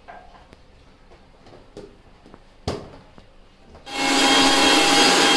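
Mixer grinder (mixie) blending moringa leaves with water in its steel jar: it switches on about four seconds in and runs loud and steady with a whine. Before it come light clinks and a single knock as the jar and glass are handled.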